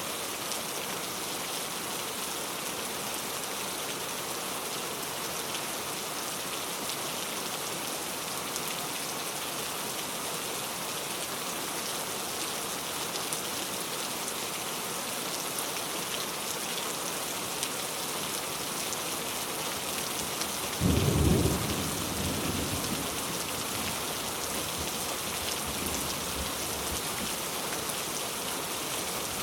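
Steady heavy rain hissing. About two-thirds of the way through, a sudden loud low crack of thunder breaks in and rumbles away over a few seconds.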